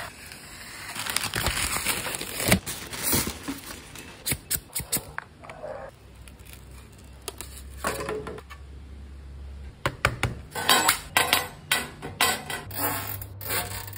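Rustling and crinkling of plastic and paper packaging as a parcel is unwrapped. A flat plastic sign clicks and taps against hard floor tiles, with a dense run of sharp clicks in the last few seconds.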